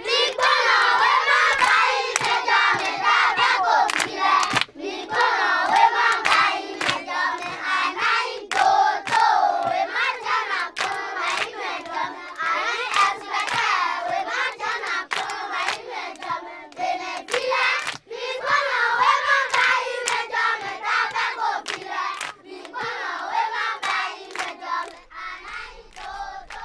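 A class of children singing loudly together and clapping their hands in a steady rhythm.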